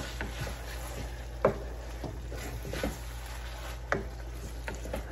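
A spatula stirring and scraping in a cooking pot, with a few sharp knocks against the pot; the loudest comes about a second and a half in.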